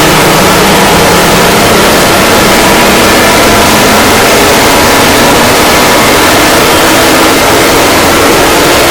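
Emergency Alert System–style alarm audio: very loud, steady static noise at the edge of clipping, with faint steady tones running through it.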